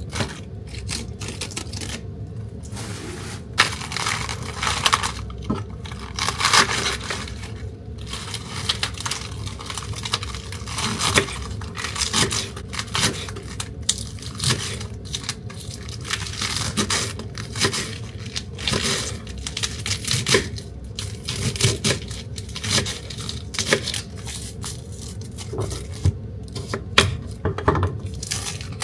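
Crisp iceberg lettuce leaves being torn off the head with a crackling tear. Then the leaves are chopped with a kitchen knife on a wooden cutting board in many short crunchy strokes.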